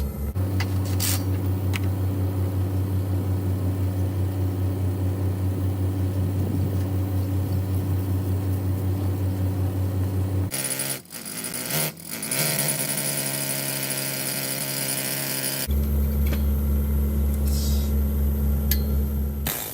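A machine running steadily with a low, pulsing hum. About halfway through it gives way for about five seconds to a brighter, hissing sound with a thin high tone, then the hum returns.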